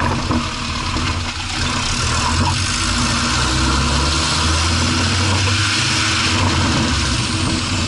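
Car engine running with a steady rushing road noise, heard from inside the front wheel well beside the tyre and coilover strut.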